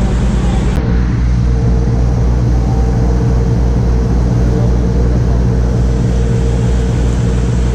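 Diesel engine of a Chao Phraya river tourist boat running steadily under way, a loud low drone with a faint steady hum above it, over the rush of water past the hull.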